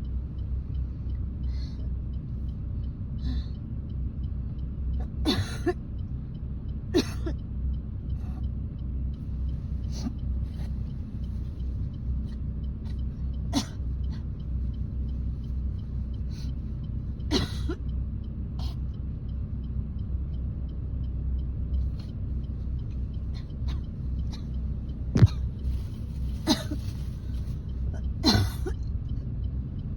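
A woman coughing and clearing her throat, about nine short coughs spaced a few seconds apart over the steady low rumble of a car cabin on the move. It is a chesty cough with phlegm stuck in the throat that will not come up.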